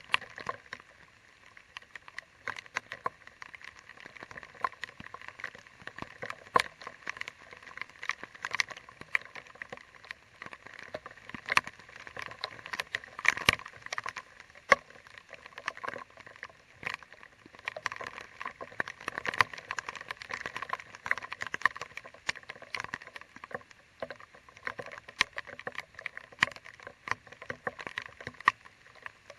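Rain pattering: drops striking close by in an irregular scatter of sharp ticks, some loud, over a light hiss of falling rain.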